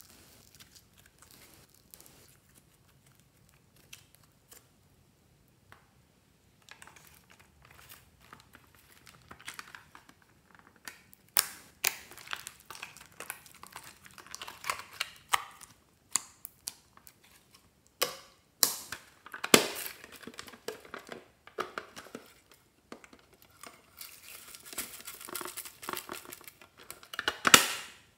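Slime being stretched, squeezed and peeled out of a plastic tub by hand: sticky crackling and popping. It is faint for the first several seconds, then grows busier, with a few louder sharp snaps from about halfway on.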